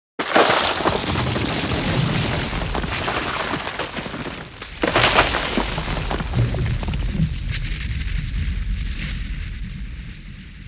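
A sudden loud boom with a long rumbling, crackling tail, a second sharp blast about five seconds in, then the rumble slowly dies away.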